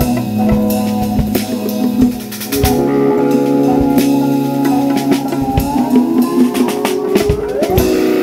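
Live instrumental 70s-style funk: electric guitar over a drum kit and congas, the drums striking steadily. Over the last few seconds a held note slides slowly upward.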